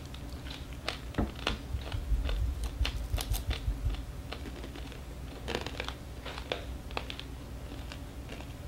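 Dried edible scorpions crunching as they are chewed and broken apart by hand: quick, irregular crisp crackles, thickest in the first few seconds and again about two-thirds of the way in.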